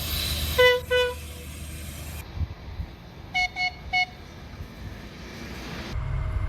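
Train horn sounding two short blasts over a low rumble, then a different, higher-pitched train horn giving three quick toots.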